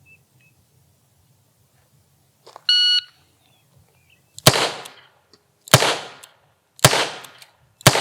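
Electronic shot-timer beep, followed about a second and a half later by a Colt Python .357 Magnum revolver firing .38 Special rounds: four shots, roughly one every 1.2 seconds, each with a ringing tail. It is a slow string, ending in a 7.04-second time for six shots.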